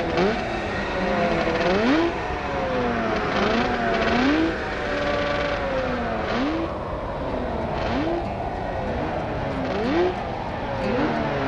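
Motor vehicle engines revving, their pitch sweeping up and falling back over and over, about once a second.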